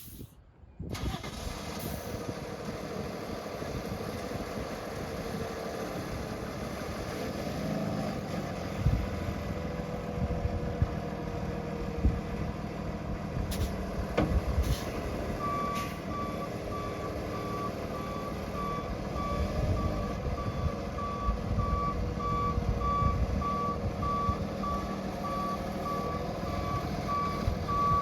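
2016 Freightliner M2 box truck with its engine running steadily. About halfway through, a backup alarm starts beeping at an even pace and keeps going.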